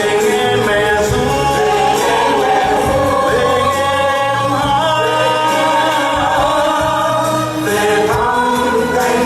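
A group of singers performing a Vietnamese song with instrumental accompaniment, long held notes over a steady bass line.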